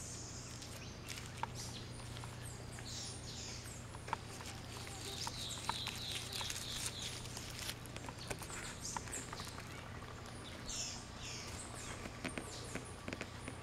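Forest birds calling: many short high chirps and quick falling notes, with a run of rapid repeated notes about halfway through, over a steady low hum. Scattered sharp clicks and crackles come through as well.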